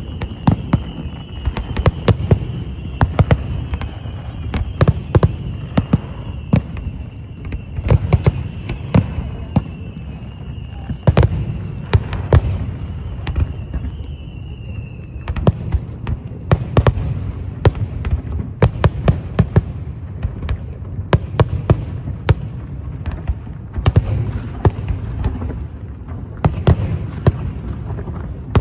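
Fireworks display: a dense, irregular run of shell bursts and crackles, at times several a second. A steady high whine runs underneath and stops about halfway through.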